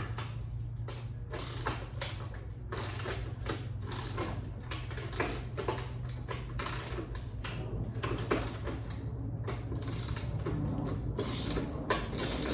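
Hand ratchet with a T45 Torx bit clicking in irregular runs as a motorcycle's fender bolt is backed out.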